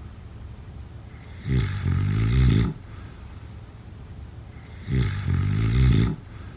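A sleeping person snoring: two loud snores about three and a half seconds apart, each lasting a little over a second with a rapid low rattle.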